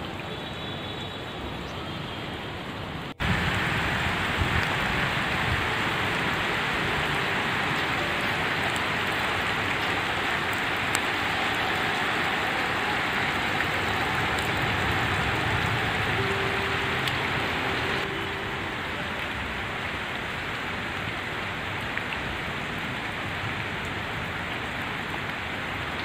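Steady rain falling on leaves and a wet paved path, a dense even hiss. It breaks off sharply about three seconds in and comes back louder, then eases slightly after about eighteen seconds.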